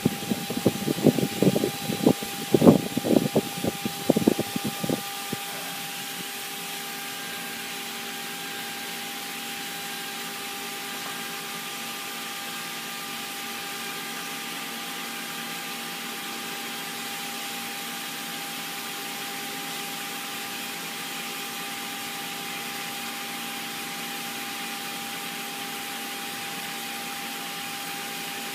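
Spindle motor of a four-axis CNC router with a rotary axis running with a steady high whine. For the first five seconds or so the bit cuts into a wooden log turning on the rotary axis, giving loud, irregular knocking chatter. After that only the even whine goes on.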